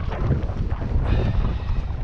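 Wind buffeting the microphone in an uneven low rumble, with a few faint ticks.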